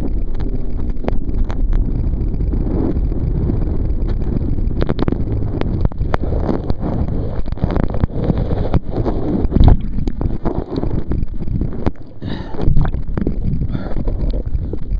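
Rushing water spray and wind buffeting the microphone of a jacket-mounted camera as a slalom water skier is towed at speed, with many sharp knocks and crackles. There are two louder hits about ten and thirteen seconds in.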